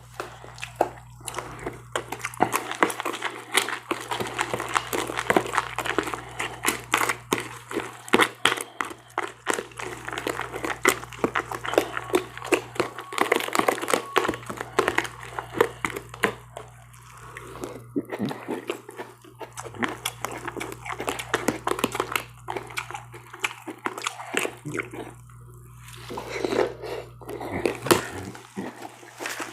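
Close-miked eating of cereal in milk: a steady run of wet crunching and small crackles from chewing, with irregular clicks throughout.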